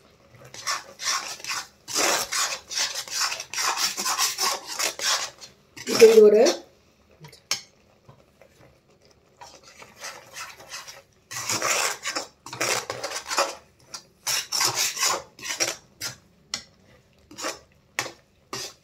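Metal perforated spatula stirring and scraping grated coconut in thickening sugar syrup against a metal kadai, in runs of quick strokes with a pause in the middle. A brief voice sound comes about six seconds in.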